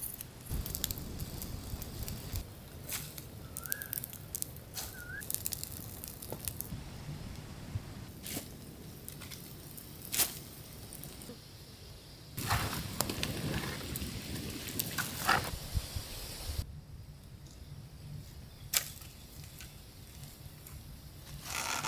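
Dry brush and branches crackling and snapping as a brush fire burns down, with a stretch of louder rustling about halfway through and a couple of short bird chirps early on.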